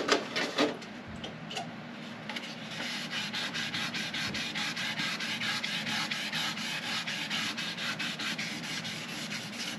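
Hand wet sanding of a painted motorcycle fuel tank with 2000-grit sandpaper on a pad. Light, quick, even back-and-forth strokes make a steady scrubbing hiss that settles into a regular rhythm about two seconds in. The sanding is cutting down roughness and orange peel in the fresh clear coat.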